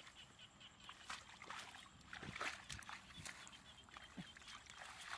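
Faint, irregular rustling and light splashing: hands working in shallow muddy water and feet moving through grass.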